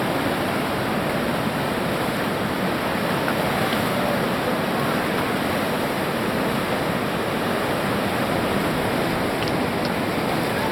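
Whitewater of a big Colorado River rapid rushing, a steady unbroken water noise.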